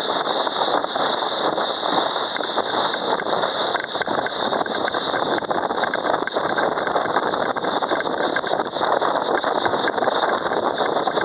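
Small boat running at speed behind a Yamaha 90 hp outboard: a steady rush of wind on the microphone and spray off the hull, with no clear engine pitch standing out.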